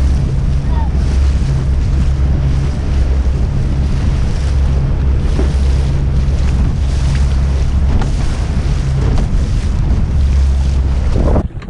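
Heavy wind buffeting the microphone over the steady rumble of a boat running across choppy water; the noise stops abruptly near the end.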